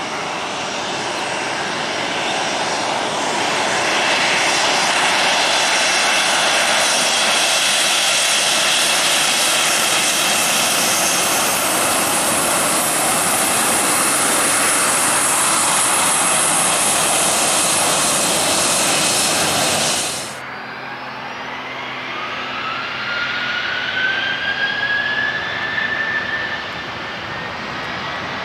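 Boeing 737-800's CFM56 jet engines, a loud steady rush as the airliner rolls past close by on the ground. About two-thirds of the way through the sound changes abruptly to a quieter jet noise with a rising whine as the engines spool up for takeoff.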